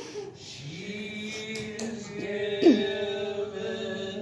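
Male vocal quartet holding a sustained chord in harmony, with a quick sliding vocal swoop about two-thirds of the way through.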